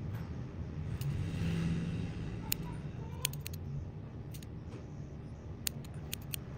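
Scissors snipping through a thin soft-rubber fin, a series of short sharp clicks as the blades close, several in quick succession, over a steady low rumble.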